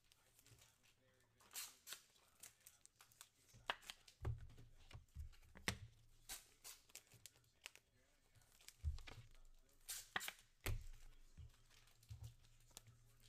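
Faint tearing and crinkling of trading card pack wrappers, with scattered rustles and clicks as cards are handled.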